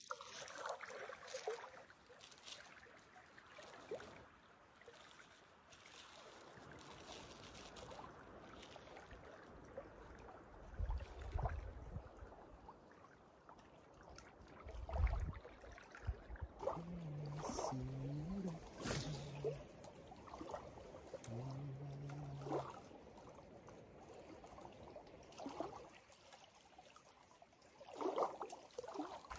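Small waves lapping and trickling against a rocky lakeshore, steady and fairly faint, with a few low thumps of wind on the microphone.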